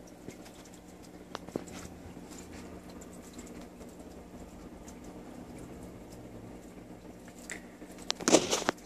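Faint steady low hum with a few small clicks and scratches, and a short burst of louder rustling about eight seconds in.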